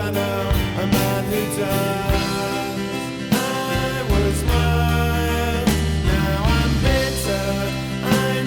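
A band playing a pop-rock song with bass, drums and other instruments, with what may be singing over it.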